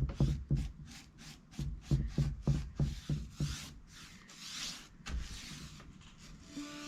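Paintbrush stroking a final coat of paint onto wooden furniture legs: a quick run of short brushstrokes, about five a second, then a few longer, slower strokes.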